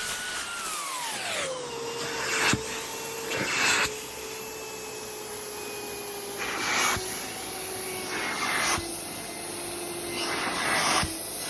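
Vacuum cleaner used for washing upholstery, its motor whine falling in pitch about a second in and then holding steady. Short rushes of noise come every one to three seconds.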